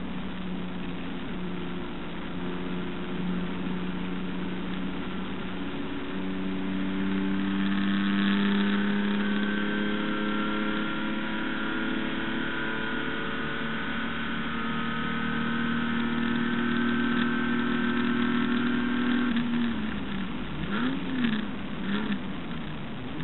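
Holden HQ race car's six-cylinder engine heard from inside the car at full throttle, its note climbing slowly as the car gains speed along a straight. Near the end the driver lifts off and the engine gives two quick revs, typical of throttle blips on downshifts into a corner.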